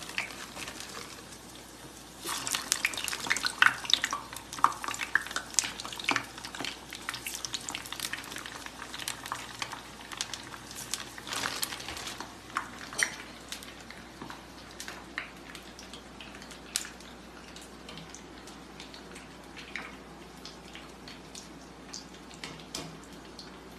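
Frozen potato smileys frying in hot oil in a small kadai: the oil breaks into dense, loud sizzling and crackling about two seconds in as the pieces go in, then settles into a lighter, steadier sizzle.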